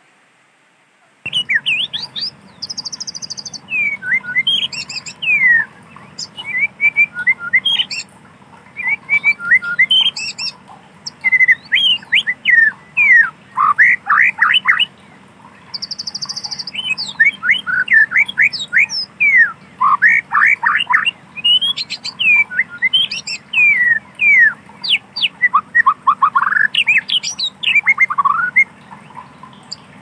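White-rumped shama singing a rapid, varied song of whistled notes, quick chattering phrases and harsher squawks, starting about a second in after a brief silence. Twice a short buzzy trill breaks in.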